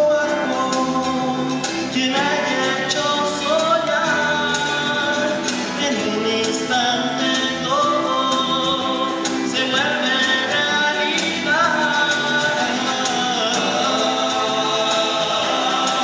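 Live folk song: male voices singing together over strummed classical guitars and drums.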